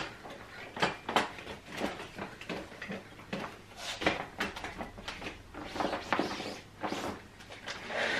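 A cloth wiping down a baby's high chair: irregular rubbing swishes with light knocks and rattles from the chair's parts being handled.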